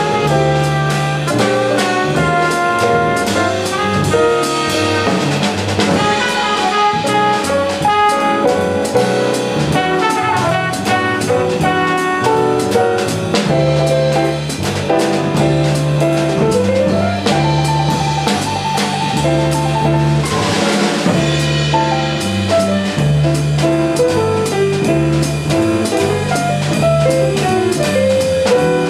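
A live jazz quartet of trumpet, piano, double bass and drums plays an original tune in 5/4. Melodic lines move over a walking bass line and steady cymbal and drum playing.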